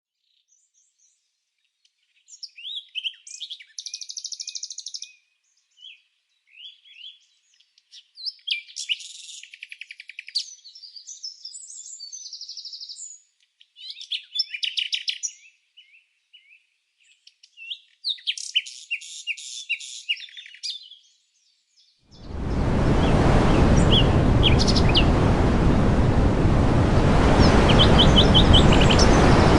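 A songbird singing in separate phrases of quick high chirps and trills, with short pauses between them. About 22 seconds in, a loud, steady rushing noise begins, with a few faint chirps over it.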